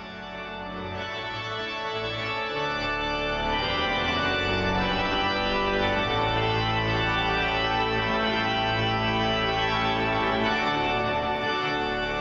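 Organ playing slow, sustained chords, growing louder over the first few seconds.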